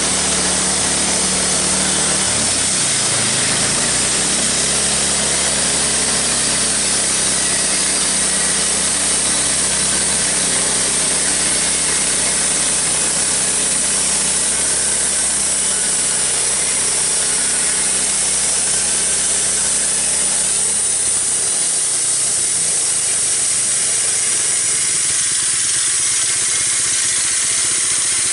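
Homemade band sawmill running and cutting timber: a steady motor hum under a loud, even hiss of the blade. About three-quarters of the way through, the low hum falls away and the hiss carries on.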